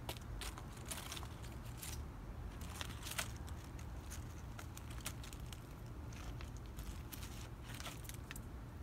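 Fox squirrel eating close up: an irregular run of crisp crackles and clicks as it gnaws and crunches its food.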